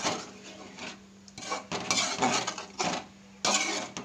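Steel ladle stirring chicken curry in a metal pot, scraping and clinking against the pot about five times at irregular intervals.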